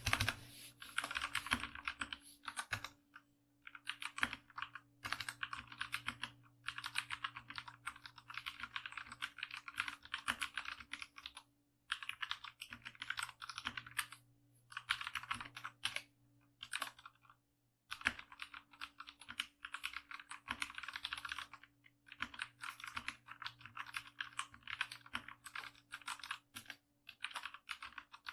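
Typing on a compact 60% mechanical keyboard: runs of rapid keystroke clacks lasting a few seconds each, broken by brief pauses.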